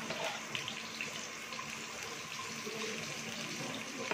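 Onions frying in ghee in a pan on a gas stove: a steady sizzling hiss with faint scattered crackles.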